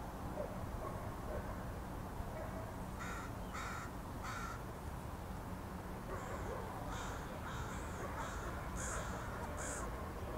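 A flock of crows cawing: a quick run of three caws about three seconds in, then more scattered caws from several birds, over a steady low background rumble.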